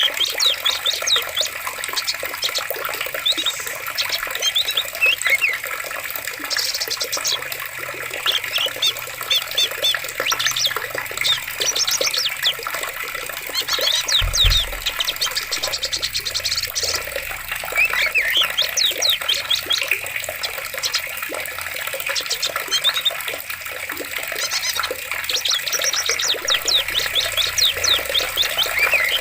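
Steady rush of running water in a forest, with small birds singing quick, repeated chirping trills over it. A brief low thump about halfway through.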